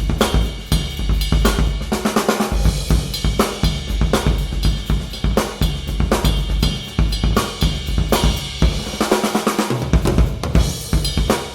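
Vintage Gope acrylic drum kit played continuously: kick drum, a 14x5 aluminium Pinguim snare, hi-hats and Paiste 505 cymbals. The kick drops out for about a second around three-quarters of the way through.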